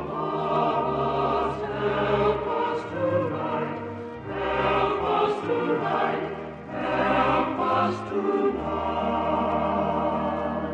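A choir singing a slow, hymn-like passage in long held phrases that swell and briefly dip between them.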